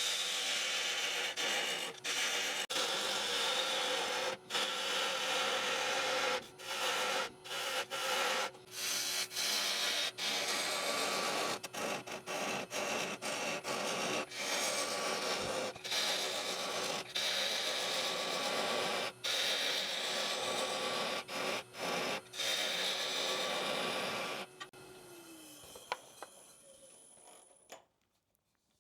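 A bowl gouge cutting the outside of a spinning dried oak bowl blank on a wood lathe: a dense, rough cutting noise broken by many brief gaps as the tool lifts off, over the lathe motor's steady hum. Near the end the cutting stops and the hum falls in pitch as the lathe winds down.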